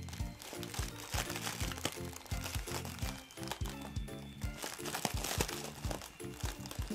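Foil balloons crinkling and rustling as a Chihuahua noses and bites at them, over background music.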